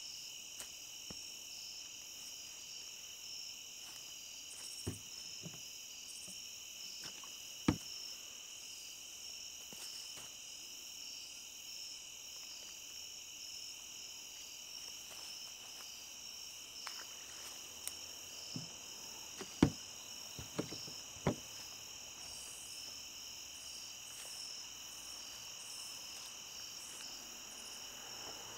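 Chorus of night insects, crickets and katydids of late summer, trilling steadily at several high pitches. A few short sharp clicks and knocks of fishing gear being handled break in, the loudest about two thirds of the way through.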